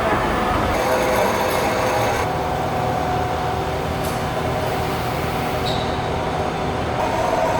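Metal lathe running in a workshop: a steady, loud mechanical drone with a few held whining tones over it.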